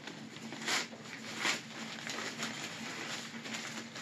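Nylon stuff sacks and bivy fabric rustling as they are handled and opened, with a few louder crinkles about a second, a second and a half and two and a half seconds in.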